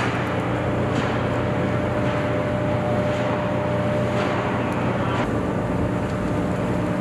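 Steady drone of ship and boat engine machinery with a constant humming tone and a few faint clicks.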